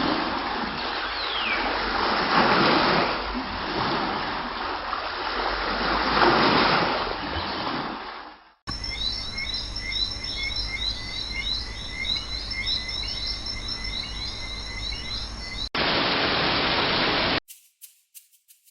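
Hot oil sizzling and crackling as slices deep-fry into chips. It cuts off suddenly to birds chirping repeatedly over a soft hiss, then the sizzling returns briefly, followed by a few clicks near the end.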